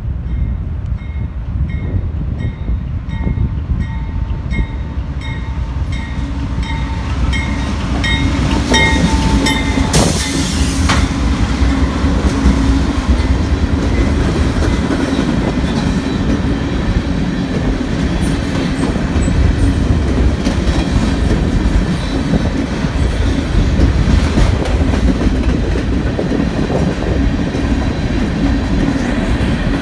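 Crossing bell ringing about twice a second as a Canadian National diesel freight train draws near. The locomotives pass about ten seconds in, and a long line of covered hopper cars follows, rolling by with steady wheel clatter over the rails.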